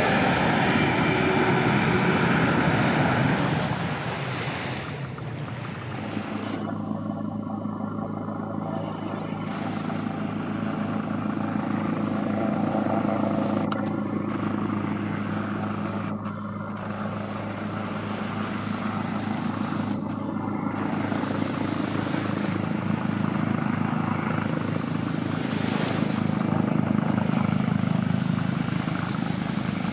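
An Emirates Boeing 777-300ER's GE90 engines whine as the jet passes low on approach with its gear down; the pitch falls and the noise fades over the first few seconds. From about five seconds in, a Leonardo AW139 helicopter's rotor beat and turbine hum take over and stay steady.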